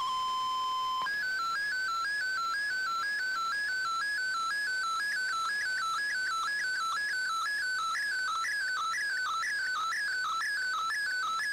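MFSK digital-mode picture transmission from a shortwave broadcast, heard through an Icom IC-R8600 receiver. It starts with a steady single tone for about a second, then switches to a warbling tone that steps up and down in a fast repeating pattern as the colour image is sent.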